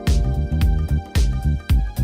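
Background music: an electronic funk track with a steady, heavy beat of about two kicks a second under sustained synth notes.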